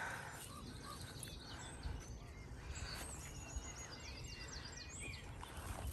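Faint birdsong: short high chirps and twittering notes from small birds, over a low steady rumble.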